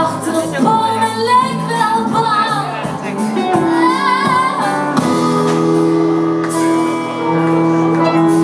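Live band music: a woman singing over electric keyboard and guitars. About five seconds in the voice stops and the keyboard holds sustained chords.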